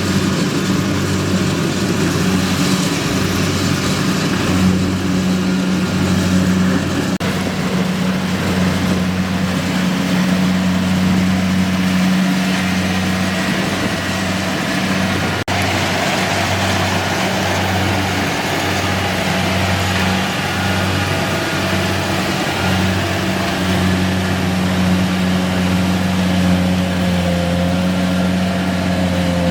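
Kubota DC-70G PRO rice combine harvester's diesel engine running steadily at a constant speed.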